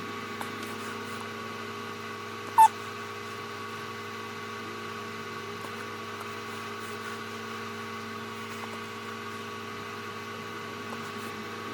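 Steady electrical hum with several constant tones, and one sharp click about two and a half seconds in.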